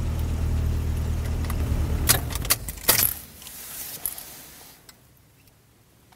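A car engine idling, heard inside the cabin, is switched off about two and a half seconds in with a few sharp clicks of the key in the ignition, followed by keys jangling briefly as they are handled.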